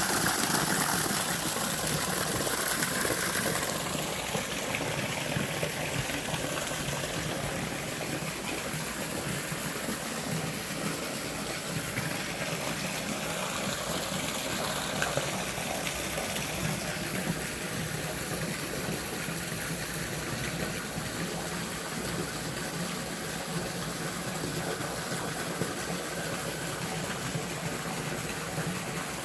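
Small natural hot-spring waterfall pouring and splashing steadily, a little louder in the first few seconds.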